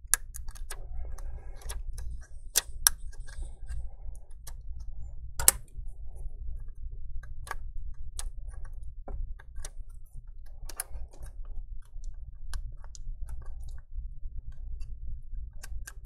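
Irregular small clicks and taps of plastic and metal as a 2.5-inch hard drive is worked free of its SATA connector and bay, over a steady low hum.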